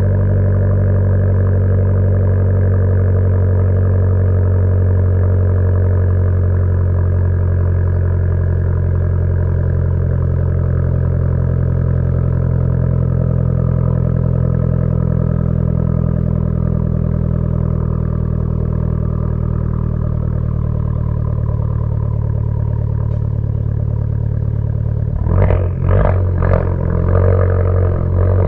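Fiat 500 Abarth's turbocharged 1.4-litre four-cylinder running at a steady, even pitch through an MPx cat-back exhaust while driving, then a few quick throttle surges near the end.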